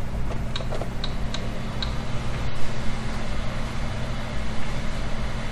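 Ender 3 V2 Neo 3D printer's cooling fans humming steadily just after power-on. A few light ticks come in the first two seconds.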